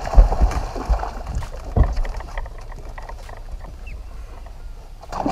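A few heavy knocks on a bass boat's deck, with a splash as a culled bass is tossed back over the side, most of it in the first two seconds. After that come lighter knocks and handling noise on the deck over a low rumble.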